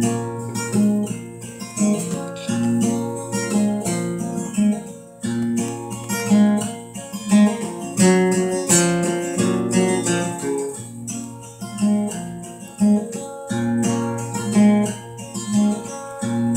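Acoustic steel-string guitar strummed and picked in a steady rhythm, with repeated bass notes under the chords. No voice yet: an instrumental introduction.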